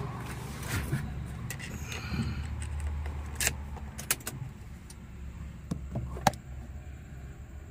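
Car keys jangling and a few sharp clicks inside a parked car as the ignition is switched on with the engine not running, over a steady low hum.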